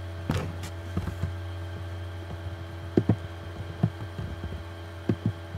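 A handful of short sharp clicks from a computer's pointer button, the loudest about three seconds in, over a steady low hum.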